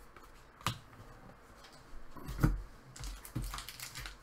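Hockey cards and foil card packs being handled and set down on a table: a few light clicks and taps, the loudest a dull thump about two and a half seconds in, followed by a brief rustle.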